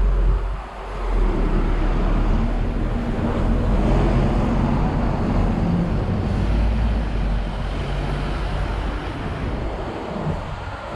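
City road traffic: a vehicle passing close with a low engine hum and tyre noise. It swells about a second in and eases off over the last few seconds.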